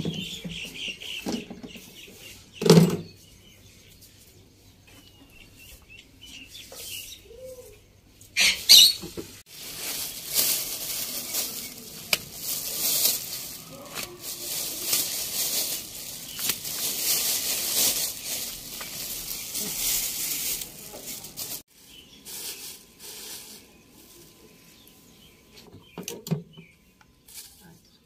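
Fresh radish bunches and their leafy tops rustling as they are handled, in a long crackly rustle. A couple of knocks come before it, the loudest about three seconds in, as things are set down on the mat.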